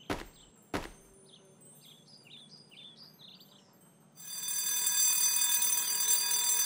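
Cartoon twin-bell alarm clock ringing: a loud, steady bell ring that starts about four seconds in. Before it come two short pops about a second apart near the start, over faint chirping birds.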